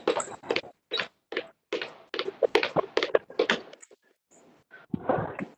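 Fast, uneven run of thuds and taps, about three or four a second, from a person's feet and hands striking a wooden floor during a quick floor exercise. The strikes thin out near the end.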